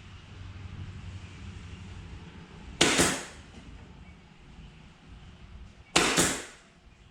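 Pin nailer firing pin nails into pallet-wood boards: two sharp shots about three seconds apart, each a quick double snap.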